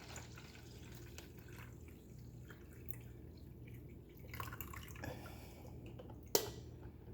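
Faint water dripping after a pour into a coffee maker, with a few light clicks, the sharpest about six seconds in.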